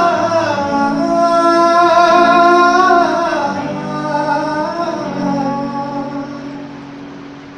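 A man singing long held notes to an acoustic guitar, with the song fading away over the last few seconds.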